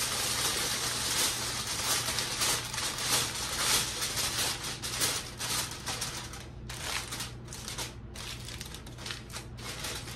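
Aluminium foil crinkling and crackling as it is pressed and crimped around the rim of a stainless steel pot. Dense, continuous crinkling for the first half, then sparser separate crackles.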